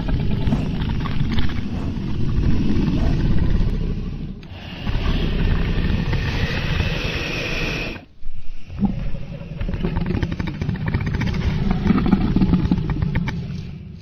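Dragon flight sound effects: a dense, low rumble with rushing noise over it. It dips briefly about four seconds in and cuts out for a moment around eight seconds before running on.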